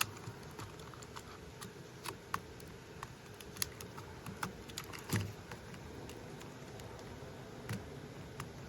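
Irregular light clicks and taps of hard plastic as a toy remote-control stunt car and its controller are handled and fiddled with, about a dozen scattered over several seconds.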